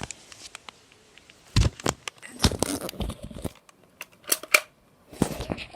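Handling a plastic Nerf Alpha Strike Tiger blaster: a series of sharp plastic clicks and knocks, with a cluster in the middle and two sharp clicks shortly after.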